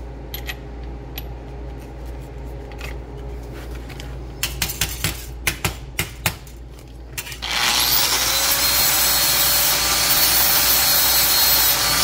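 Clicks and knocks of metal pieces being handled on a steel bench, then about 7.5 s in an angle grinder fitted with a Type 27 disc starts and runs steadily, grinding down a weld bead on the sheet steel.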